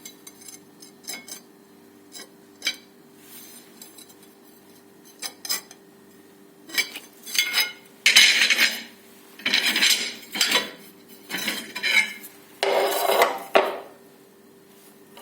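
Hard ceramic pieces clinking and scraping: a few faint clicks, then from about seven seconds in a series of loud scraping bursts, each about a second long.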